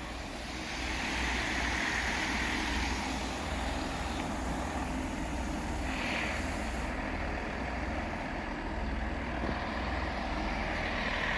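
Class 165 diesel multiple unit standing at the platform, its underfloor diesel engines idling with a steady low throb. A hiss of air swells about a second in and again briefly about six seconds in.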